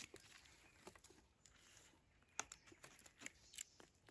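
Near silence, with a few faint, scattered clicks and crackles.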